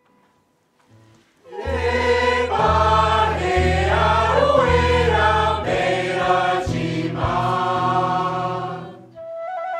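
Mixed choir singing in close harmony, entering about a second and a half in, with low double bass notes held beneath the voices. The chord breaks off near the end and a softer held chord follows.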